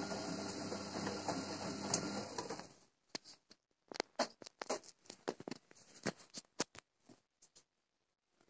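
Gorenje WA 50050 front-loading washing machine tumbling its load during the wash cycle: the drum motor runs steadily, then stops about three seconds in. In the pause that follows, scattered light clicks and taps are heard.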